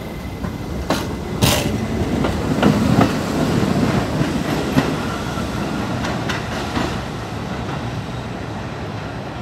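New York City subway train running out of the station, its wheels clacking over rail joints with sharp clicks and a heavy rumble. The sound is loudest in the first few seconds and then eases off as the train moves away.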